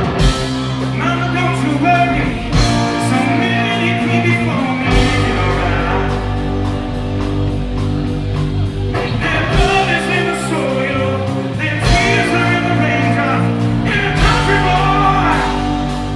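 Blues-rock band playing live: electric guitar, bass and a drum kit, with a singer's lead vocal over them in several phrases.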